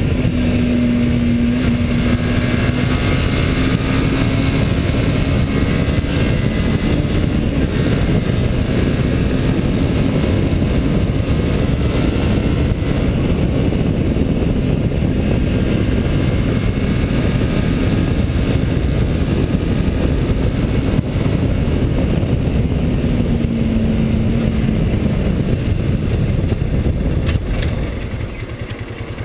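Kymco Quannon 125 motorcycle engine running at a steady cruise under heavy wind rush, its note holding a near-steady pitch with small rises and dips. About two seconds before the end the sound drops in loudness as the bike slows.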